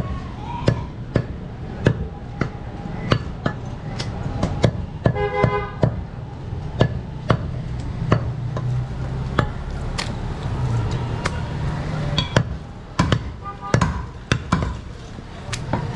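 A large butcher's knife chopping goat meat on a wooden chopping block: repeated sharp chops, about two a second at an uneven pace, over a steady low hum.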